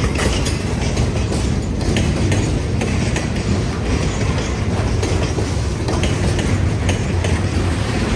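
Freight cars of a lumber train rolling past at steady speed, their wheels clicking over the rail joints.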